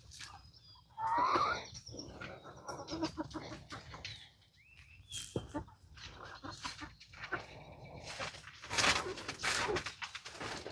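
Backyard hens clucking, with one loud squawk about a second in, among scattered knocks and a burst of rustling near the end.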